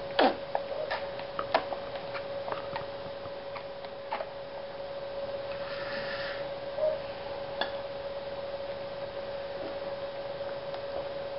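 Small plastic toys clicking and clacking as they are handled, in scattered light knocks, thickest in the first few seconds. A short falling squeak comes right at the start, and a steady high hum runs underneath.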